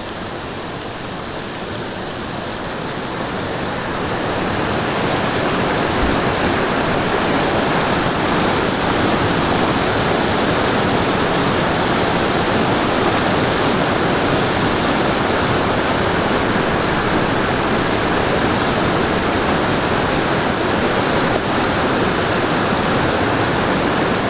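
Mountain valley stream rushing over rocks, a steady wash of water noise that grows louder over the first few seconds and then holds steady.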